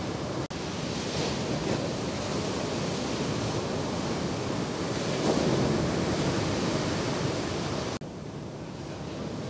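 Ocean surf breaking and washing in, a steady rushing wash that swells a little around the middle. It drops out for an instant about half a second in and turns quieter at a cut near the end.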